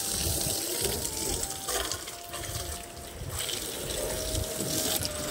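Running water splashing and spraying onto a car's bodywork as the car is wetted down before washing.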